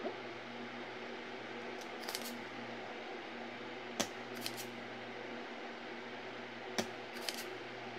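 Small metal tools and parts being handled on a TV repair bench: a handful of short, sharp metallic clicks and taps, some in quick pairs, the loudest about halfway through and again near the end, over a steady low hum.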